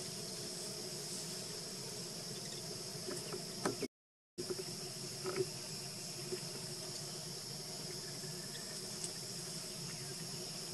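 Steady, even chorus of insects droning in the background, with a few faint clicks; the sound drops out completely for about half a second around four seconds in.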